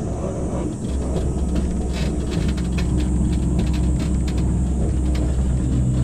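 Forest monorail car running along its rail: a steady low rumble and hum, with a run of light clicks and rattles in the middle.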